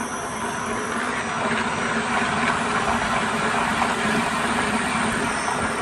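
Innovatech 18-inch concrete floor grinder polisher running with its 3 HP WEG electric motor spinning the grinding head, which is not yet lowered onto the concrete. It gives a steady hum and whir that grows a little louder over the first couple of seconds as the speed is turned up.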